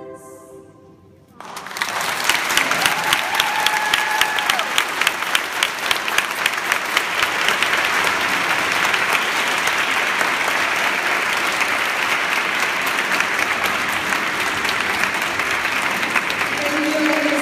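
The last note of the song dies away about a second in, then the audience breaks into applause, dense steady clapping, with one voice calling out briefly over it.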